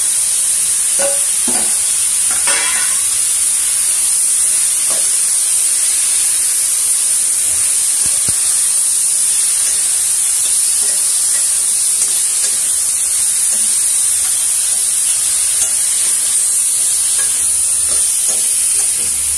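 Freshly washed button mushrooms sizzling in hot oil in a steel kadai, a steady high hiss, while a spatula stirs them, with a few scrapes of the spatula about one to three seconds in.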